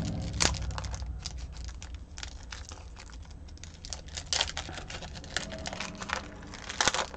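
Wrapper of a Topps trading-card pack crinkling and tearing as it is opened by hand, with the cards inside handled. An irregular run of sharp crackles, loudest about half a second in, again after about four seconds, and just before the end.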